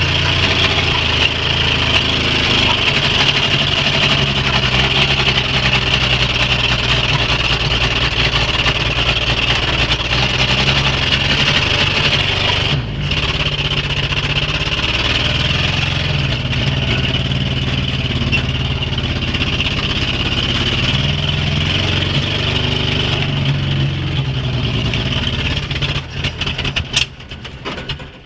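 A vehicle engine running steadily while the truck creeps along, heard from inside an old truck cab. Near the end the sound turns uneven and drops away sharply.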